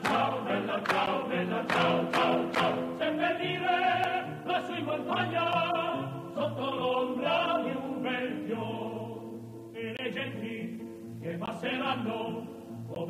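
Choral music: voices singing long held notes with vibrato.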